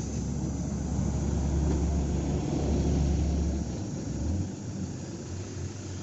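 Heavy dump truck's diesel engine running low as the truck drives past on a dirt haul road. It is loudest about two to three seconds in, then fades away about four seconds in, leaving a weaker steady low hum.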